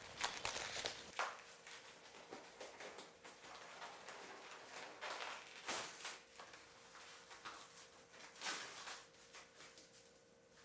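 Faint, irregular rustling, crinkling and light scraping of packing material as padded parts are unwrapped and handled, over a faint steady hum.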